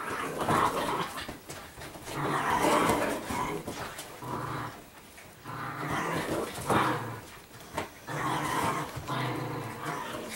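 Italian Greyhounds growling as they rough-house in play, a run of growls coming every second or two.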